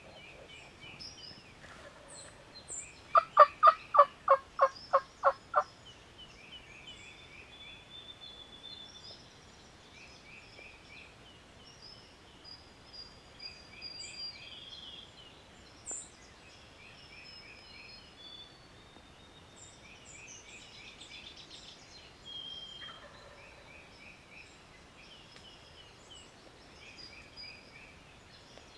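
A wild turkey gobbler gobbles once, about three seconds in: a quick rattling run of about eight notes. Small songbirds chirp in the background throughout.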